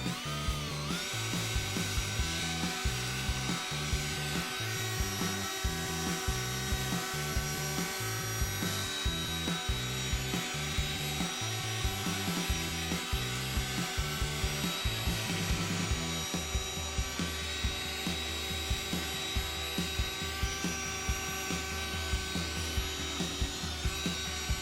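Milwaukee cordless drill spinning up and running steadily, driving a polishing pad against a plastic headlight lens, with a steady motor whine. Background music with a beat plays underneath.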